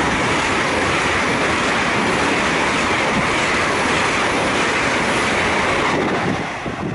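Two coupled Great Western Railway Class 802 (IET) units running through a station non-stop at speed: a loud, steady rushing roar of wheels on rail and displaced air that drops away about six seconds in as the train clears.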